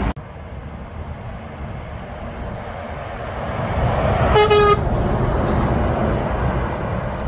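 A truck and trailer approaching and passing, its engine and tyre rumble building as it comes closer. It gives one short horn toot about four and a half seconds in.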